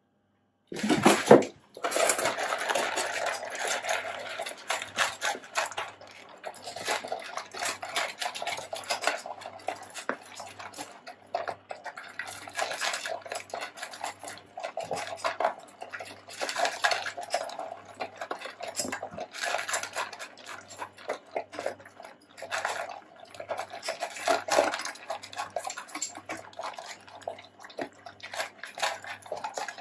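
Two beagles eating from stainless steel bowls: rapid, irregular clinking and scraping of teeth and tongues against the metal as they lick and gulp their food.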